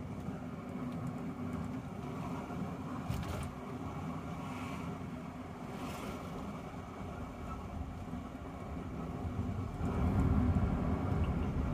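Steady road and engine rumble heard from inside the cabin of a moving car, swelling louder near the end, with two brief faint hisses about three and six seconds in.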